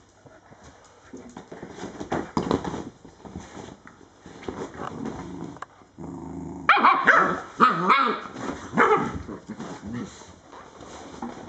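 Two dogs play-fighting over a rope toy: scuffling and knocks at first, then a loud burst of barking about seven seconds in that goes on for a few seconds.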